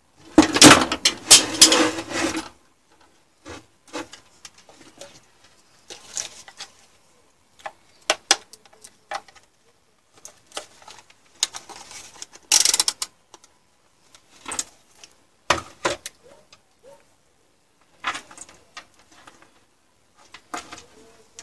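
Knocks, clicks and rattles of a metal ATX PC power supply and its wiring harness being handled and turned over on a wooden workbench. The loudest stretch of clattering comes in the first couple of seconds, followed by scattered short bumps and clicks.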